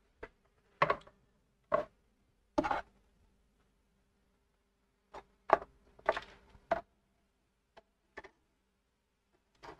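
About ten short, irregular clicks and taps from small tools being handled and set down during soldering work, over a faint steady hum.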